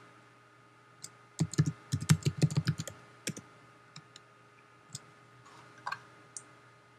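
Typing on a computer keyboard while a password is entered: a quick run of key clicks from about one to three and a half seconds in, then a few single clicks spaced out near the end.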